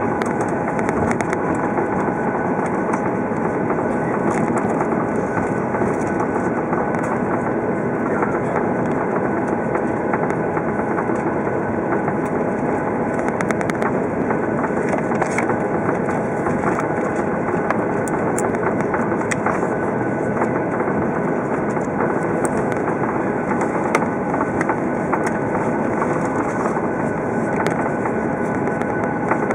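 Steady cabin noise of a Boeing 737-800 taxiing, its CFM56 jet engines at idle thrust: an even rush with a steady hum and a faint whine, with a few faint ticks.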